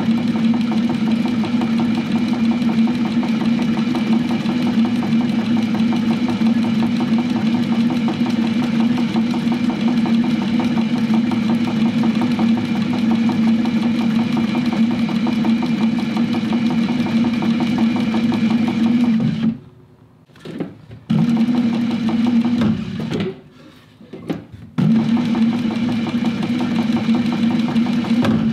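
Techsew 2750 Pro cylinder-arm sewing machine stitching leather, its motor running at a steady speed with one strong hum. It stops about two-thirds of the way through, then runs in two short spurts with pauses between them, stopping again near the end.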